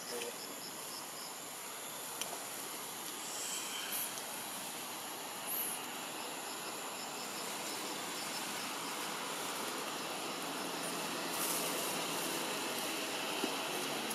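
Outdoor insect chorus: crickets and other insects chirping and buzzing over a steady background hiss, with a run of quick regular chirps partway through and a few brief faint calls.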